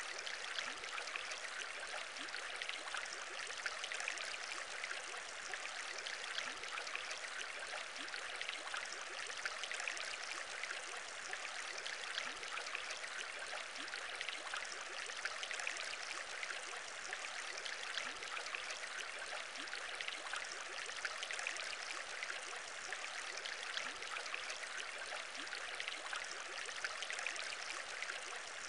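Steady aquarium bubbling: a continuous water hiss dotted with many small bubble pops, even throughout.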